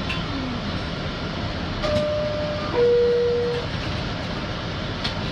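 R62A subway car's two-note descending door chime, sounding about two seconds in, a higher tone followed by a lower one, over the steady hum of the car. It signals that the doors are about to close.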